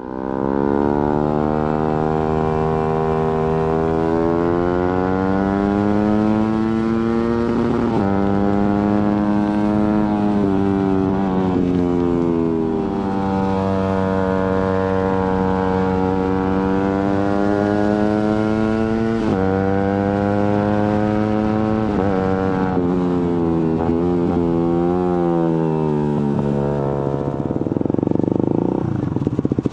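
Suzuki GSX-R150's single-cylinder engine through an aftermarket Prospeed exhaust, accelerating hard: the pitch climbs through the revs and drops sharply at each clutchless quickshifter upshift, several times over. Near the end the throttle eases off and the revs fall away.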